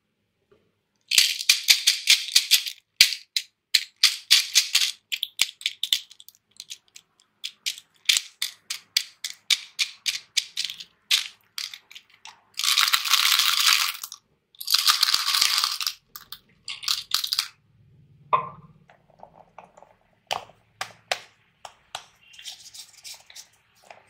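Small hard colourful pieces rattling and clattering into plastic toy tubs in a string of pours and shakes, two longer pours just past the middle. Scattered sharp plastic clicks and taps come between them as a plastic toy capsule is handled.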